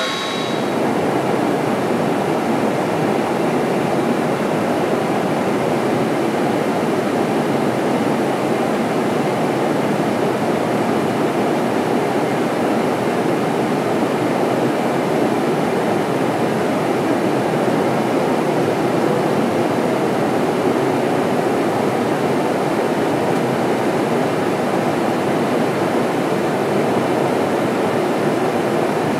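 Steady in-flight cabin noise inside a KC-10A Extender tanker: an even rushing roar of airflow and engines with no single tone standing out.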